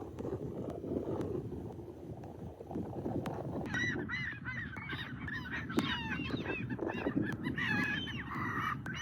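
Low steady rumble, then from about four seconds in a chorus of many short, high-pitched animal calls that overlap, each rising and falling in pitch.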